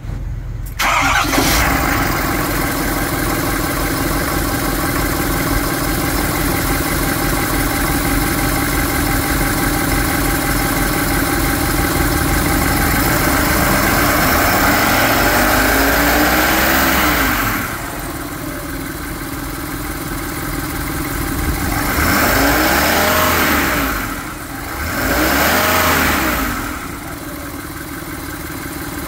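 2019 Ford F750 truck engine cranked and catching within the first second, then running steadily. It is revved up and let back down once in the middle, revved twice more in short blips, and settles back to idle near the end.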